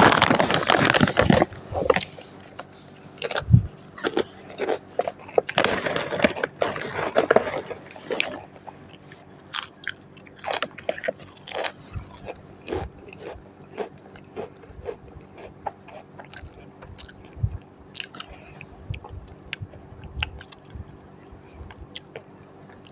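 A person biting and chewing crisp chips. There are dense, loud crunches at the start and again around six seconds in, then fewer, lighter crunches as the chewing slows.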